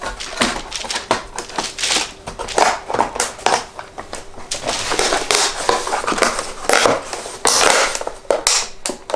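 Laser-cut plywood pieces of a mountain dulcimer body being pressed and fitted together by hand: a dense run of irregular scraping and crackling noises of wood rubbing against tight-fitting wood.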